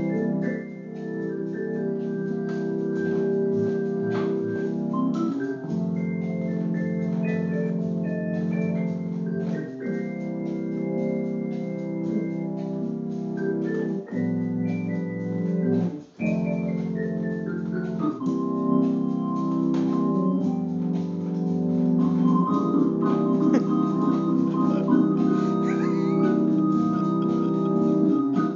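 Two-manual home organ played: sustained held chords with a melody line on top, the notes changing every few seconds. The sound breaks off briefly twice, about 14 and 16 seconds in.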